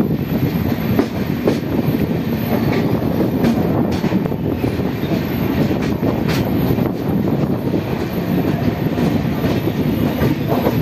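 Passenger train running along the track, heard from an open coach doorway: a steady low running noise of wheels on rails, with a few sharp clacks at irregular intervals.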